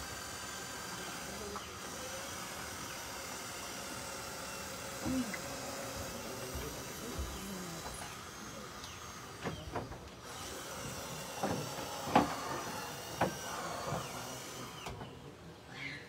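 Cordless drill whirring as it drives screws into an overhead wooden beam, then several sharp knocks in the second half.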